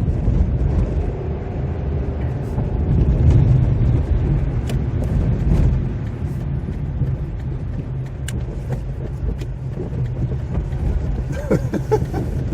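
Steady low rumble of a car driving, heard from inside the cabin, with a few faint clicks scattered through it.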